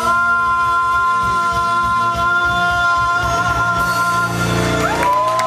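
Live band playing with a singer holding one long note for about four seconds, then sliding up into a new note near the end, over drums and bass.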